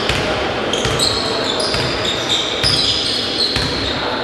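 Sports shoes squeaking on a gym floor in many short, high chirps, with ball bounces and knocks echoing around the hall.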